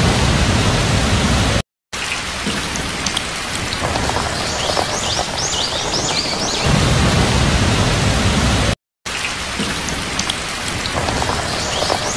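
Heavy rain falling steadily, with a low rumble in two stretches, cutting out for an instant twice.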